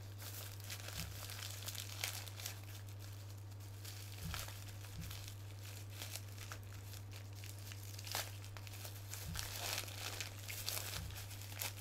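Crinkling and rustling of wrapping material being pulled off an action figure by hand, in irregular crackles, with a steady low hum underneath.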